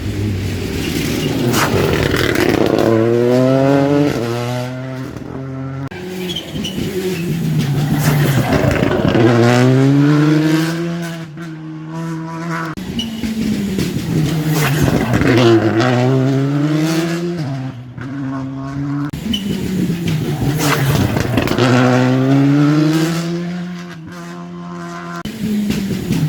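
Rally car engine driven hard, its pitch climbing again and again and breaking off at each gear change or lift, the sound swelling and fading as the car works through the stage's bends.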